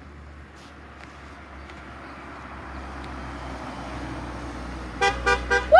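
A car approaching on the road, its tyre and road noise growing louder, then near the end its horn gives several short beeps in quick succession.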